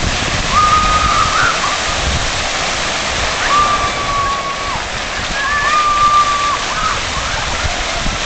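Dozens of splash-pad fountain jets spraying up and falling back onto wet pavement: a steady hiss and patter of falling water. Three long, high, level-pitched calls, each about a second, ring out over it, starting about half a second, three and a half and nearly six seconds in.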